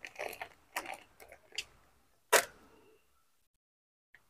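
Soft crinkles and small clicks of a plastic compost bag being handled and tipped out, then a single sharper knock a little over two seconds in as the bag is set down on a wooden bench.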